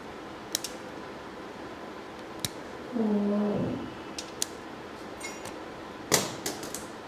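Pliers cutting and stripping a wire: a few sharp clicks and light ticks spread over several seconds, with a cluster of them near the end. About three seconds in, a short low voiced sound, like a brief hum, lasting under a second, is the loudest thing.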